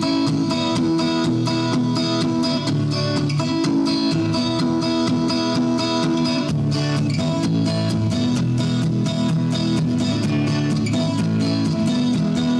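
Strummed guitar music: chords struck in a steady, even rhythm.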